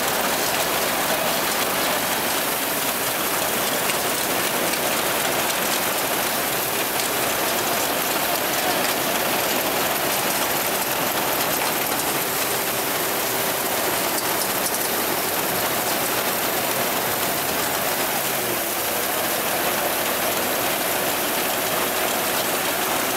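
Old Cicoria belt-driven threshing machine running steadily at full working speed: a dense, even mechanical clatter and rush, with a faint steady hum underneath.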